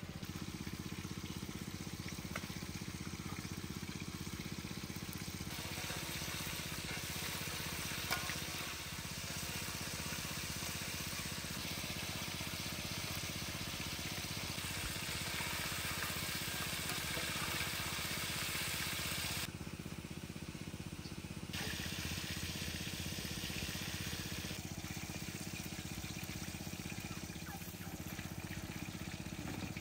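Chicken wings deep-frying in a wok of hot oil, a steady sizzle and bubbling, over a low steady rumble. The sizzle changes abruptly several times.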